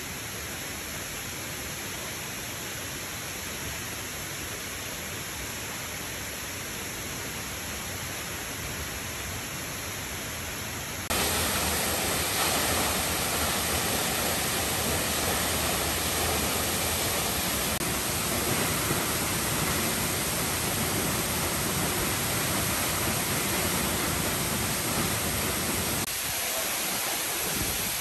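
Steady rushing of falling water from a rainforest waterfall in monsoon flow. It is softer at first and much louder from about eleven seconds in.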